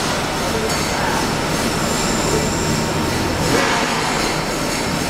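CNC steel pipe cutting machine running and cutting steel pipe: a steady, loud metallic machine noise with thin high whining tones over it.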